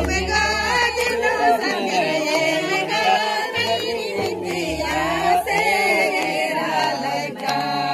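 A group of people singing together, several voices wavering in pitch at once, with a low rumble coming and going underneath.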